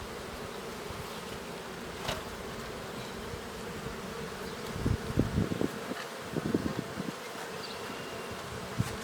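Honeybees buzzing as a steady hum around an opened hive. A few low thumps come about five and six and a half seconds in.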